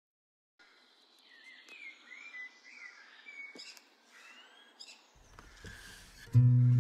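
Faint, scattered high chirps and light rustling, then acoustic guitar music begins near the end with low held notes.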